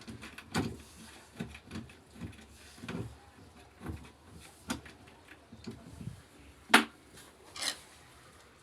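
Irregular knocks and clatter of objects being handled, with one sharp, louder click near the end.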